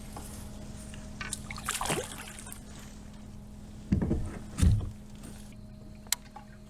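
Handling noises in a fishing kayak on the water: a brief rustle about two seconds in, then two low thumps about half a second apart, over a faint steady hum.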